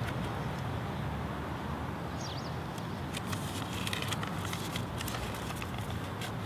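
Crumpled sheet of paper crinkling in the hands as it is unfolded, a quick run of small crackles in the second half, over a steady low background rumble.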